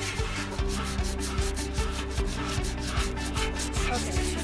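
Sandpaper being rubbed back and forth over a steel car frame in quick, even strokes, smoothing rough spots before primer.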